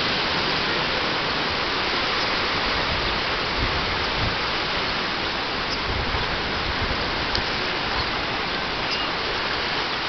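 Steady rushing of water in a dolphin pool: an even hiss without breaks, with a few faint low thumps around the middle.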